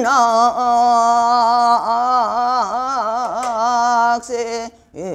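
A woman's solo voice singing sijochang, Korean traditional sung poetry, holding one long note whose pitch wavers in slow dips. About four seconds in the note breaks off, there is a short breath, and the singing resumes near the end.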